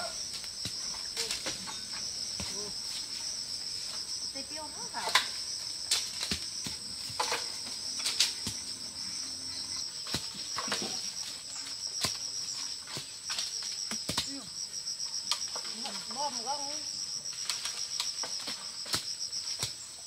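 Steady high-pitched chorus of insects, crickets or cicadas, with scattered sharp clicks and knocks throughout, the loudest about five and six seconds in.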